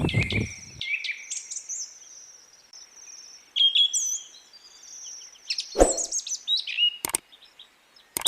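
Birds chirping and calling in short high chirps and whistled notes, with two sharp clicks about six and seven seconds in. A loud rushing noise dies away in the first half second.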